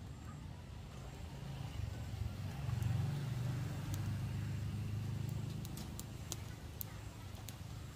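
Engine rumble of a motor vehicle passing, swelling about two to three seconds in and fading again near the end.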